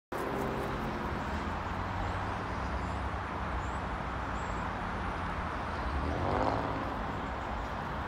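Steady traffic rumble with a low engine hum. About six seconds in, a vehicle passes close by, its sound swelling and fading.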